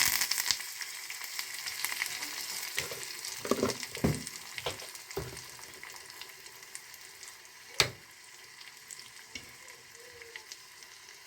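Tempering (oggarane) sizzling in hot oil, loudest at the start and then dying down to a faint fizz. A spoon clinks and knocks against the pan a few times, with one sharp knock later on.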